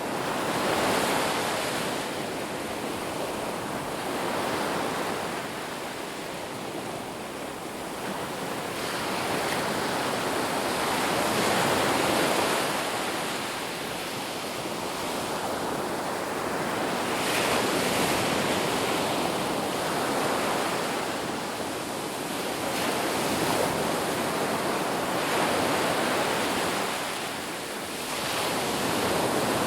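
Ocean surf: a continuous wash of waves breaking and running up the shore, swelling and ebbing every several seconds.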